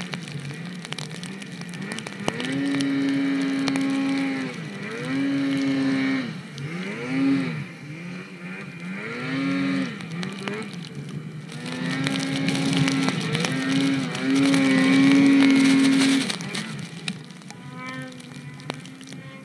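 Snowmobile engine revving hard and easing off again and again, its pitch holding high for a second or two, then dipping and climbing, with a hiss of track and snow noise underneath. It is loudest from about the middle to near the end.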